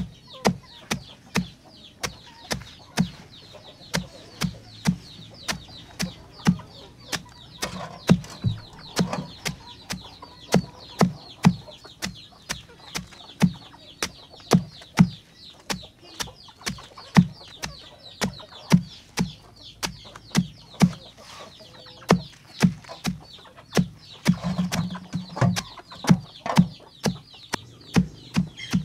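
A large knife chopping through a pile of sliced banana stem onto a tarp over the ground, in steady strokes about twice a second, each a sharp knock with a dull thud. Hens cluck in the background.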